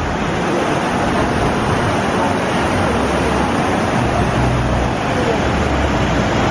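Steady rushing noise of water running through the water-coaster slides, with a low hum beneath.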